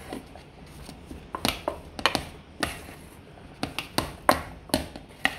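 A metal spoon clinking and scraping against a stainless steel bowl while mashing raw cornstarch with palm oil. Sharp, irregular clinks come in small groups, beginning about a second and a half in.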